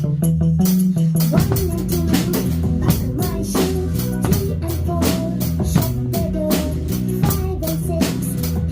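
Instrumental music with a steady drum-kit beat, bass and guitar, the band filling in about a second and a half in.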